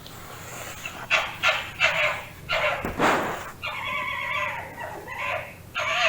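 A fox calling: a run of short, high yelping calls, then a longer drawn-out call about halfway through, and more short yelps near the end.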